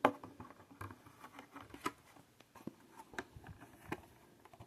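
Irregular small clicks and taps with light rustling from plastic packaging being handled by hand, the sharpest click right at the start.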